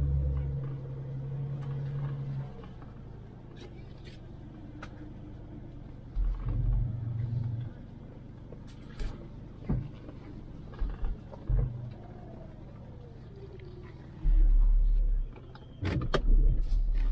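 A vehicle driving off-road over rough ground: a low engine rumble that swells in several short bursts, with scattered knocks and rattles.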